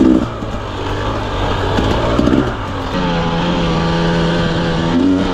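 Hard-enduro dirt bike engine running at low revs with a couple of short throttle blips, then held steady at higher revs from about three seconds in.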